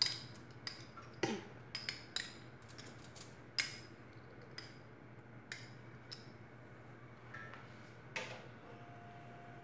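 A metal spoon clinks and scrapes against a small cup as garlic-ginger paste is scooped out into a pan. The clicks come quickly in the first few seconds, thin out, and stop about eight seconds in. A low steady hum runs underneath.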